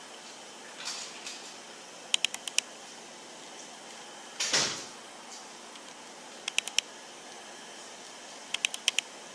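Sharp clicks coming in three quick sets of about four, with one short rustling burst about halfway through, over a faint steady background.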